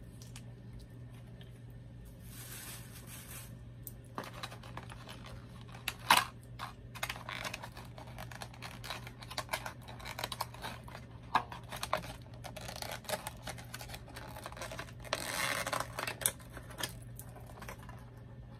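Cardboard toy box and plastic packaging being handled and opened by hand: scattered clicks and scrapes, with two longer rustles, one about two seconds in and one near the end. A steady low hum runs underneath.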